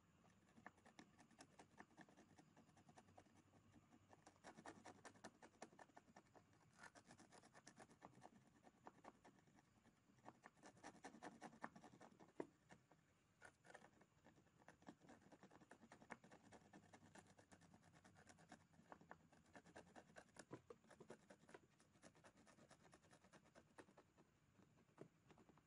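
Faint, rapid scratching and rubbing on an ECU circuit board, scrubbing away the leaked electrolyte residue left under a removed capacitor.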